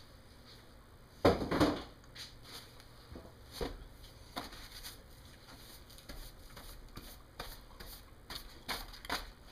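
Coated synthetic camo fabric with a waterproof backing being handled and smoothed by hand: a louder crumpling rustle about a second in, then scattered soft crinkles and brushing.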